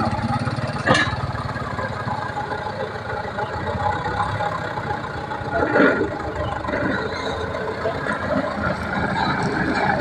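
Engine of a teak-log hauling machine running steadily, with a sharp knock about a second in and a louder clatter near the middle.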